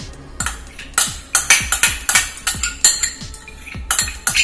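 Metal spoon clinking and scraping against a glass bowl as strawberry purée is tapped out into a pan of milk: sharp, irregular clicks several times a second, over background music.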